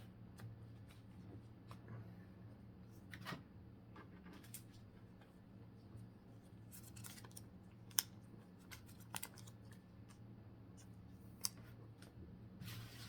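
Faint handling of Pokémon trading cards: cards sliding and flicking against one another as a booster pack is flipped through, with a sharp click about eight seconds in. A steady low hum runs underneath.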